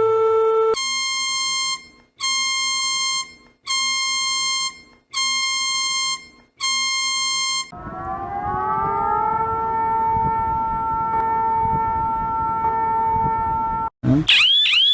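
A run of emergency alert tones. A steady tone ends, then come five evenly spaced electronic beeps about a second and a half apart, then a siren-like tone that rises and holds steady over a rumble. Near the end a fast, repeating whooping alarm cuts in.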